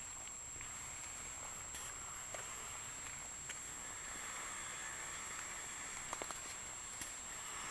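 Faint steady outdoor background noise with a thin, steady high whine, broken by a few light clicks and a short run of taps about six seconds in.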